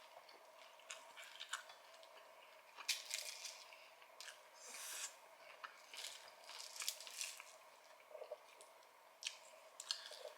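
Close-up eating sounds: crispy fried chicken batter crunching under bites, with wet chewing and squishing in between. The crunches come irregularly, the loudest about three seconds in.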